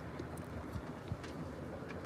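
Faint, low rumble of distant thunder, with irregular low knocks.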